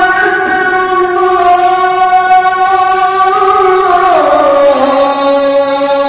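A voice singing long, drawn-out notes that glide slowly from one pitch to the next, dropping lower about two thirds of the way through.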